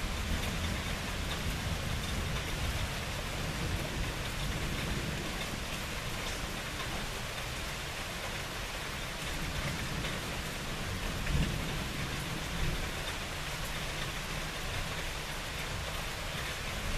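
Steady rain with thunder rumbling low underneath, and one brief louder thump about eleven seconds in.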